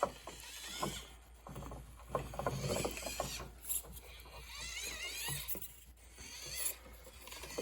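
SCX24 micro RC crawler working over an obstacle course: its small electric motor whines up and down with the throttle, over scattered clicks and knocks from the tires and chassis on the course.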